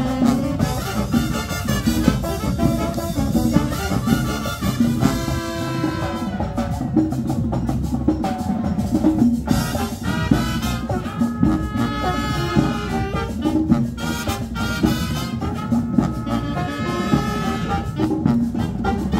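A marching band's brass and drums playing a lively Latin dance tune with a steady beat.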